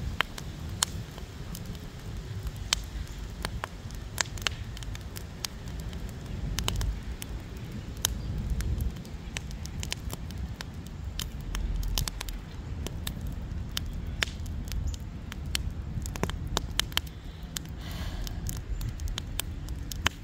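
Fire pit fire crackling: irregular sharp pops and snaps over a low rumble.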